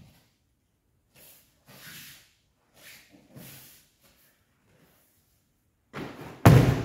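A judoka thrown onto tatami mats, landing with a loud breakfall slap and heavy thud about six and a half seconds in, just after the swish of the throw. Before it, a few soft brushing sounds of bare feet on the mats and judogi cloth as the two close in and take grips.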